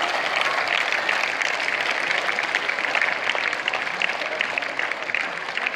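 Large crowd of schoolchildren clapping, a steady dense patter of many hands, easing slightly near the end.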